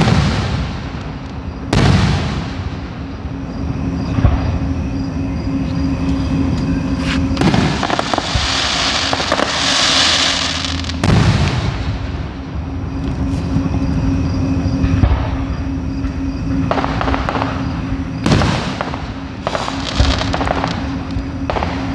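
Aerial fireworks shells bursting with about half a dozen sharp bangs, spaced unevenly and clustered near the end, with a stretch of hiss near the middle. A steady low hum runs underneath.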